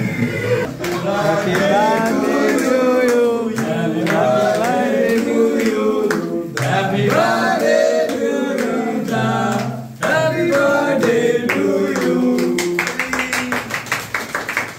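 A song with a male voice singing over instrumental backing, with a quick, even beat in the last couple of seconds.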